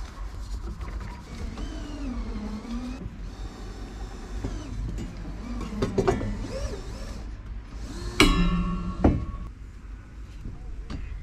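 A sharp metallic clank about eight seconds in that rings on for about a second, over a steady low rumble.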